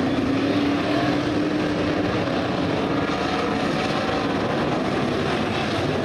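Several IMCA Modified dirt-track race cars' V8 engines running together around the oval, a steady drone with individual engine notes drifting up and down in pitch.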